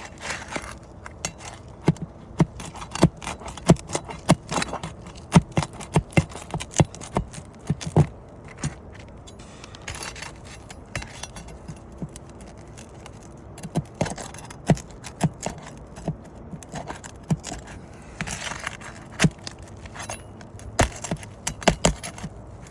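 A metal tool tapping and scraping on asphalt roof shingles as the tab seals are broken and the nails worked loose. It comes as a run of sharp taps and scrapes, thickest in the first third and again near the end.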